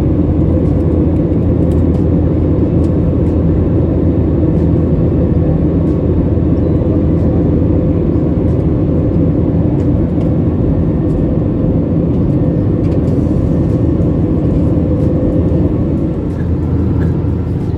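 Airliner's jet engines heard from inside the passenger cabin: a steady, loud low drone during the takeoff climb.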